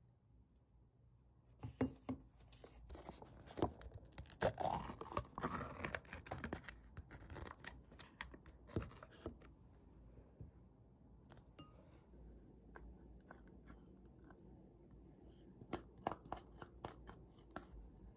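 Foil lid being peeled off a plastic Greek yogurt cup: a crinkly tearing and crackling for several seconds, starting about a second and a half in. Scattered soft clicks and scrapes follow as the cup is handled and the yogurt is tipped into a bowl.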